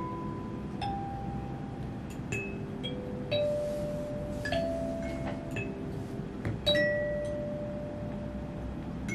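Small clear plastic kalimba (thumb piano) being plucked, picking out a slow tune of single notes about one a second, each note ringing on after it is struck.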